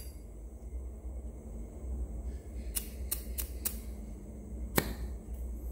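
Sharp metal clicks from a Zippo lighter being handled: four quick clicks, about three a second, then a single louder click about a second later.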